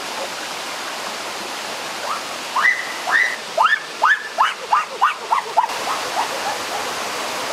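Steady rush of a waterfall and rocky stream. About two seconds in, a boy lets out a quick run of high, rising whoops, about three a second, which step down in pitch and fade away.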